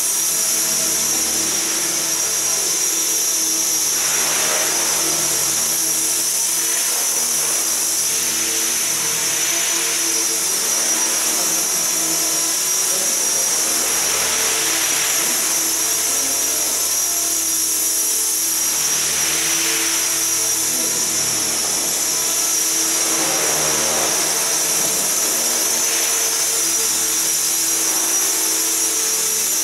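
Align T-Rex 450 SE V2 electric RC helicopter in flight: a steady high whine from its electric motor and gears over the rotor noise, the rotor noise swelling and fading several times.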